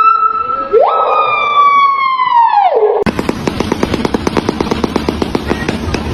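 A bird giving long whistled calls that sound like a siren: the first breaks off, the next jumps up and then slides down in pitch. About three seconds in, a fast harsh rattle of roughly ten pulses a second follows.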